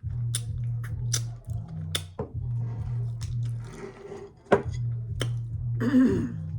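A person eating up close: wet mouth clicks and lip smacks several times a second, with a sharper click about four and a half seconds in and a short falling hum near the end. A steady low hum runs underneath.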